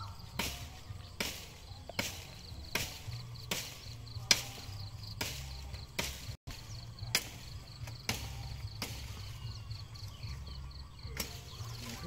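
Machete chopping into the branches of a young cocobolo tree, a sharp chop about every 0.8 seconds. The strokes pause briefly, then one more comes near the end.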